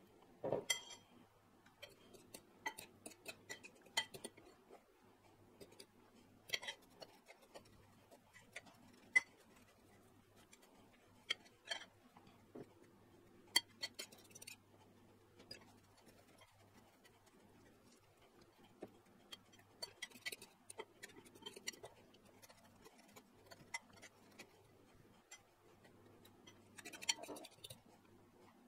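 Faint, irregular clicks and taps of metal forks against ceramic bowls while fish fillets are coated in flour, egg and breadcrumbs, with a brief scrape near the end.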